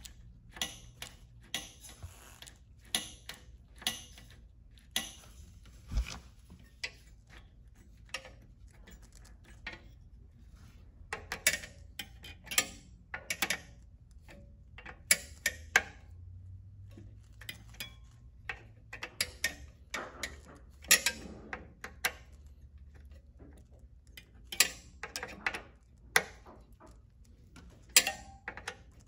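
Irregular sharp metallic clicks and ticks, some in quick clusters, as an Allen key turns a bolt on a cable-operated mechanical disc brake caliper during fitting and adjustment.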